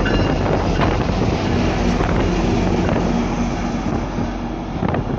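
GO Transit EMD F59PH diesel locomotive running as it moves past at close range, a steady engine note under heavy wind buffeting on the microphone.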